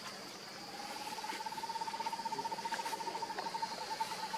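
A long, steady trilling call, finely pulsed at one pitch, starting about half a second in, over a faint steady high insect drone.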